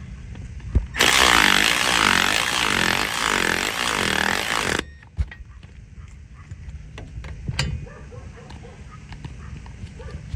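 Cordless power ratchet running for about four seconds as it drives down a 15 mm hub-bearing bolt, its pitch wavering under load, then stopping abruptly. A few light tool clicks and knocks follow.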